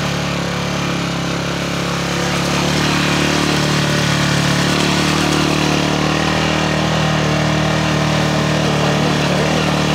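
Motorcycle engine running steadily while riding, growing louder about two and a half seconds in.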